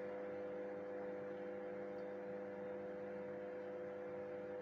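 Steady electrical hum made of several held tones, unchanging throughout, with a faint hiss beneath.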